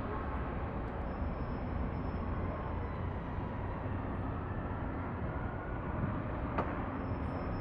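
Bell 407 helicopter running, its turboshaft engine and four-blade rotor giving a steady noise with a faint whine. A single sharp click sounds about six and a half seconds in.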